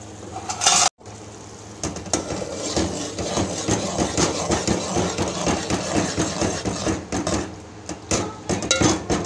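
Minced mutton keema being fried in oil while a spoon stirs it, scraping and knocking against the pan about three times a second over the hiss of the frying oil, with a brief break about a second in.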